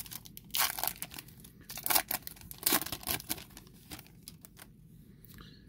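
Foil wrapper of a Topps baseball card pack being torn open and crinkled in the hands, in a run of sharp crackling bursts that die away after about four seconds.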